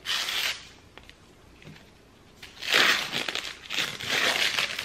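Paper wrapping rustling and crinkling as it is peeled off a glass by hand: a short burst at the start, then two longer bursts in the second half.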